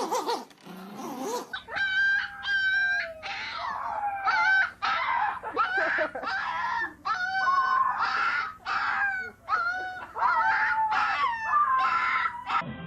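A dog vocalising in a long run of high, wavering whine-howls, one call after another with short breaks, over a steady low hum.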